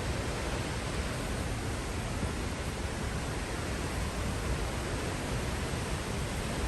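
Steady, unbroken roar of a waterfall in spate, swollen by heavy rain, with a deep rumble under the rushing.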